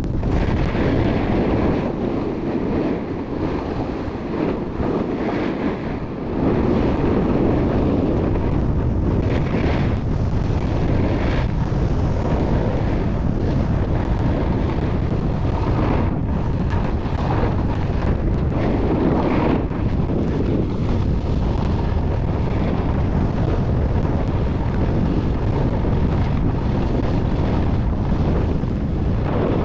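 Wind rushing over a moving microphone as a skier descends a groomed run, with skis hissing over packed snow. It gets louder about six seconds in.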